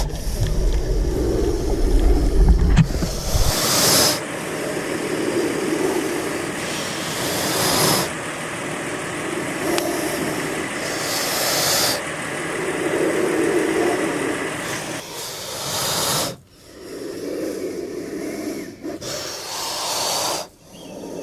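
Snake hissing: a run of breathy hisses, one every four seconds or so, each rising out of a steady rushing noise and falling back.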